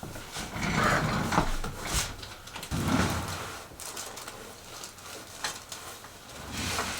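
Rustling and shifting on a padded chiropractic treatment table during a hands-on adjustment, with a sharp click about two seconds in and a few fainter clicks later.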